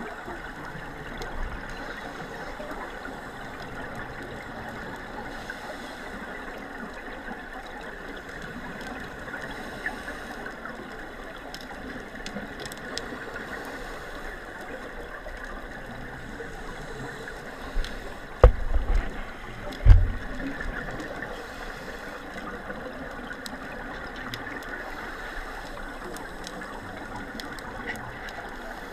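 Muffled, steady underwater water noise as picked up by a camera in a waterproof housing, with two low thumps a second and a half apart a little past the middle.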